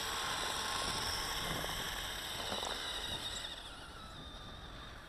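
Small battery-powered electric motor and track of a toy RC snowmobile running on snow, a faint high whine over a steady hiss that drops a little in pitch and fades out about three and a half seconds in as the sled moves off.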